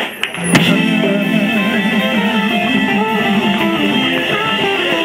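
Live soul band with electric guitar and bass hitting an accent about half a second in, then holding a long sustained chord, the closing chord of the song.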